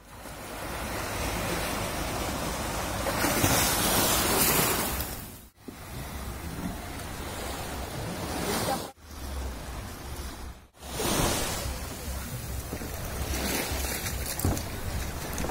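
Wind buffeting a phone microphone over choppy sea water, a steady rush that swells a few seconds in. It cuts out abruptly three times.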